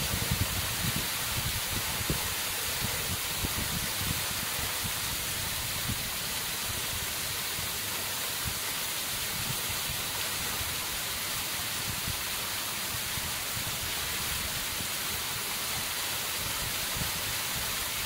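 Waterfall pouring down a sheer andesite rock face into a pool, a steady rushing hiss, heard close behind the falling water with drops of spray falling into the pool all around. Irregular low thuds sound under it, most often in the first few seconds.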